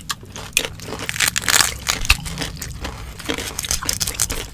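Crisp roast suckling-pig skin crackling and crunching, close to the microphone, as it is torn apart and chewed. Dense, irregular crackles, busiest a second or two in.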